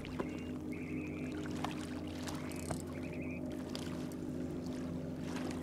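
A spinning reel being cranked against a hooked fish, its drag giving three short buzzes as line slips, over a steady low motor hum.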